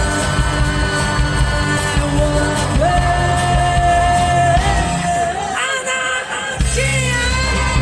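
Live rock band with vocals, saxophone, guitar, keyboards, bass and drums playing a punk rock song, with a long held high note through the middle. About five and a half seconds in, the bass and drums stop for about a second, then the full band comes back in.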